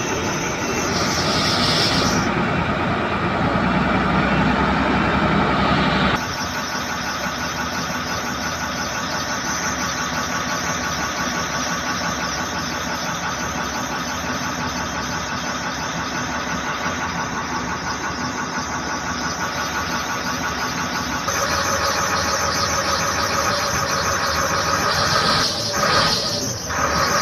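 Diesel engine of an XCMG QY25K truck crane running steadily with a high whine over it. The low rumble drops away about six seconds in, and the sound grows louder again about 21 seconds in.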